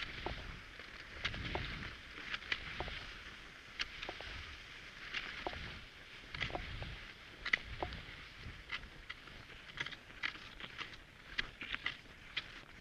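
Cross-country skis sliding over snow with a steady swish, and the sharp, irregular clicks of ski poles planting, coming faster near the end.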